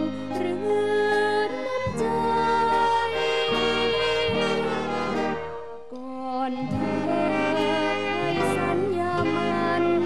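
Big band playing a song introduction, its brass and saxophones holding sustained chords. The music thins out briefly about six seconds in, then the band comes back in.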